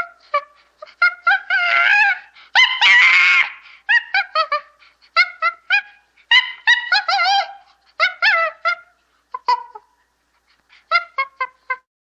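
Chimpanzee calling: a rapid series of short, high hooting calls, with a longer harsh scream about three seconds in as the loudest part, a brief pause, then a last quick run of hoots near the end.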